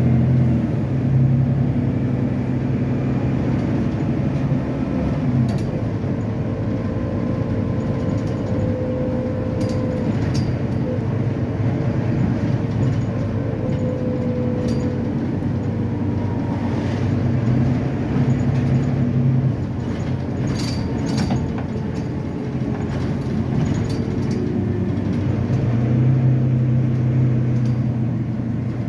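Volvo B9TL double-decker bus's six-cylinder diesel engine running as the bus drives, with a drone and a whine that come and go as it speeds up and slows down. A few clicks and rattles come about ten seconds and twenty seconds in.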